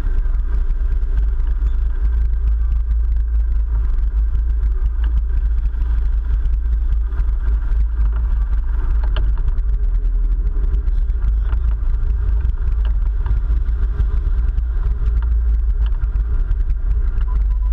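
Sportfishing boat's engines running steadily, heard as a loud low rumble.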